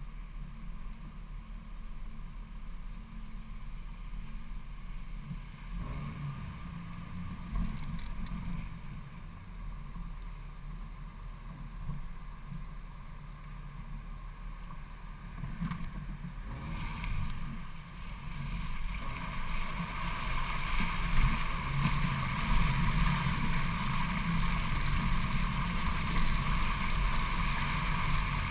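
Jeep Cherokee XJ engine running at low speed, then, from about two-thirds in, louder rushing and splashing of river water against the front wheels and body as the Jeep drives into the river.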